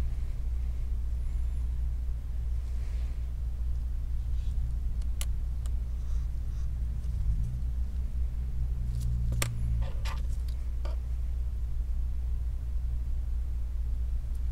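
Steady low background hum, with a few faint clicks of small phone parts being handled, the clearest about five and nine seconds in.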